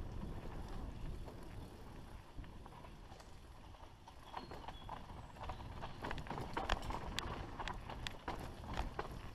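Mountain bike descending a dirt trail, heard from the bike itself: a steady low rumble of tyres on dirt, with a clatter of sharp rattling clicks and knocks from the bike over rough ground, thickest in the second half.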